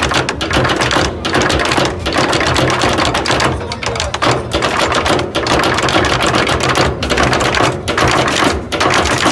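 Street percussion group playing large bass drums and snare drums together: a dense, fast run of strokes with a short break in the pattern about once a second.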